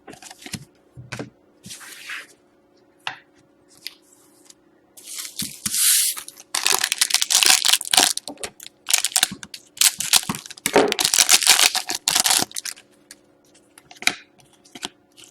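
Panini Select hockey card pack wrapper being torn open and crinkled, in two stretches of rustling about five seconds in and from about seven to twelve seconds, with light clicks of cards being handled around them.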